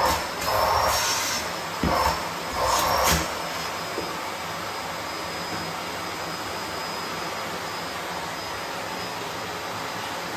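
Vacuum cleaner running with a steady rushing hiss and a thin high whine. In the first three seconds or so it surges louder four times as the nozzle works over something, then it settles to an even run.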